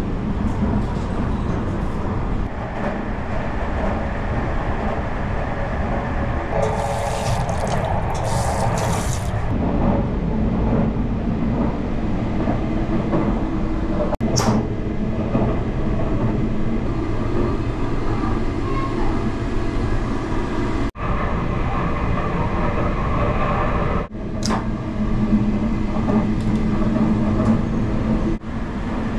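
Steady running noise of the Tobu Spacia X electric train, heard inside the carriage. There is a brief hiss about seven seconds in and a sharp click near the middle.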